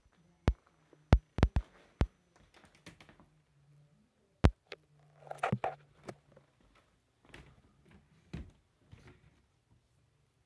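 Scattered sharp taps and knocks from someone moving about on a hardwood floor, several in quick succession in the first two seconds and a loud one about four and a half seconds in, with a brief rustle just after.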